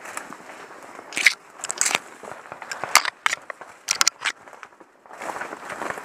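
Dry brush and twigs crunching and snapping: a run of irregular sharp cracks, thickest between about one and four and a half seconds in, over a low rustle.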